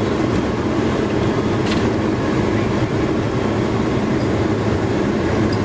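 Steady engine and road rumble of a vehicle rolling slowly onto a truck scale, heard from inside the cab.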